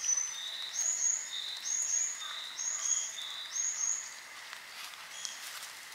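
A songbird singing a repeated two-note phrase, a short high note then a lower one, about once a second, dying away near the end.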